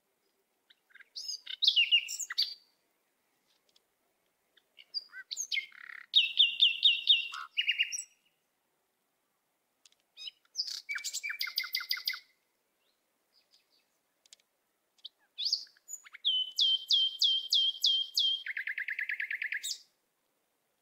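A songbird singing in four separate phrases a few seconds apart. Each phrase is a quick run of chirps and fast trills, and the last phrase is the longest.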